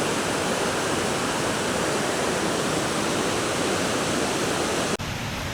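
Waterfall rushing steadily: the Rhaeadr Ddu falls pouring into their pool. About five seconds in it cuts off abruptly to a slightly quieter rush of water.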